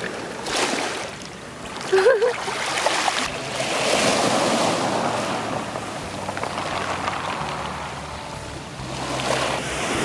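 Small sea waves washing in over a pebble beach, the surf rising and ebbing in slow swells. A brief voiced exclamation comes about two seconds in.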